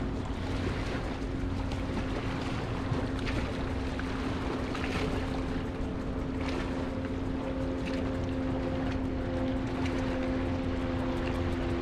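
Steady drone of a distant motorboat engine across the water, held on an even pitch, with wind rumbling on the microphone and small waves lapping.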